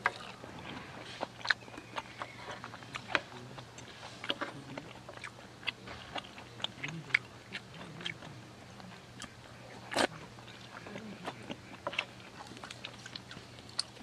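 Close-up eating sounds: chewing and biting, with scattered sharp clicks and taps of a wooden spoon against a steel mess tin.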